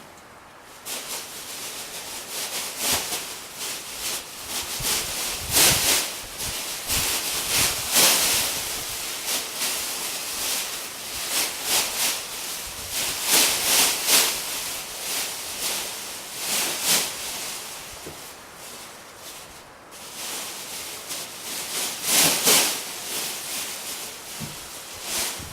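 Irregular rustling and scuffing, with brief louder swishes every second or two.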